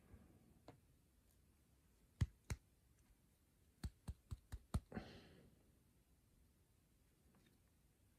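Small sharp clicks of disassembled lock pins, springs and parts being handled: a couple about two seconds in, then a quick run of five about four seconds in. A soft exhale follows the run.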